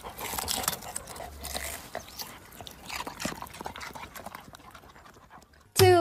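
A dog nosing and digging in loose garden soil among leafy plants: irregular rustling and scraping. Near the end, a loud voice-like call with a falling pitch cuts in.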